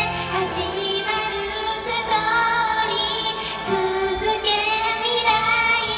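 Japanese idol pop song performed live: girls' voices singing over a backing track. The bass drops out about half a second in.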